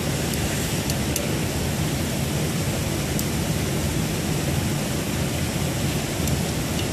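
Steady rushing background noise, with a few faint metallic ticks from a hand ratchet turning the socket on the motor pulley's bushing bolts.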